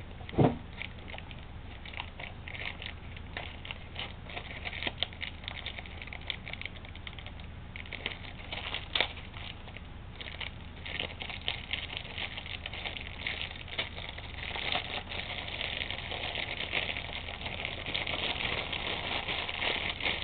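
Shipping box and packing material being handled and crinkled by hand: a steady run of small crackles and rustles that grows denser and louder in the second half, with a knock about half a second in and another near the middle.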